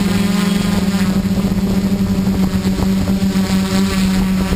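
Xaircraft X650 quadcopter's electric motors and propellers running, a steady, loud hum with a few faint knocks.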